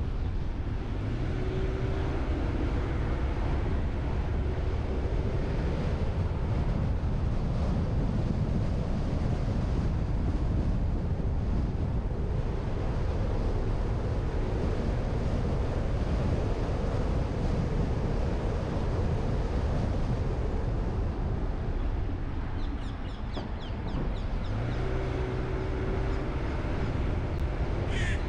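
Steady rumble of a car driving slowly along a city street: wind on the microphone and road noise, with a faint low hum rising out of it twice, around a second in and again near the end.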